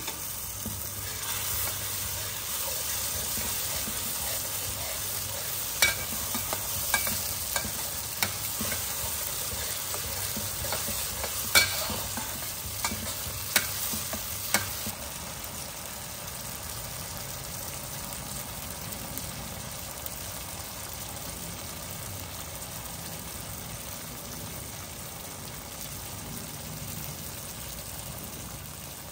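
Curry paste of curry powder, water and oil sizzling as it fries in a wok, stirred with a metal wok spatula that scrapes and clinks against the pan several times in the first half. After that the sizzle goes on evenly and a little quieter.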